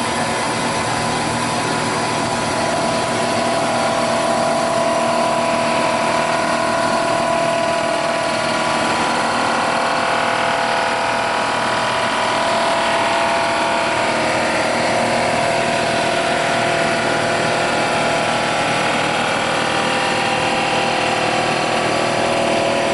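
Rottler S85A surfacing machine running, its spindle turning a cutter across the deck face of an aluminum cylinder head on a rough cut. It gives a steady machine whine with several held tones.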